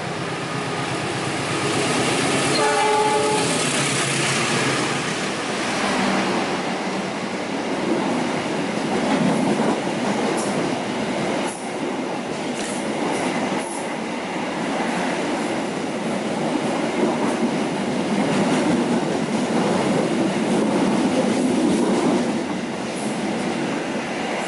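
Gajayana express passenger train approaching and passing through the station without stopping. Its horn sounds once briefly about three seconds in, then comes the rush and rumble of the coaches going by at speed, with wheels clacking over the rail joints midway, easing off near the end.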